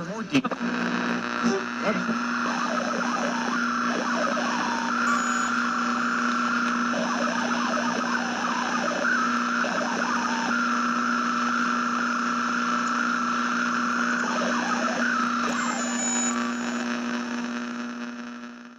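Radio putting out strange interference noise: a steady hum under hiss, with a wavering whistle and garbled, voice-like fragments coming and going. It cuts off suddenly at the end.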